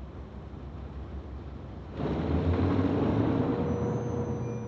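Diesel engines of three coupled ex-NS 2400 series diesel-electric locomotives working a train: a low rumble that rises sharply about two seconds in as the engines open up under load, then eases slightly.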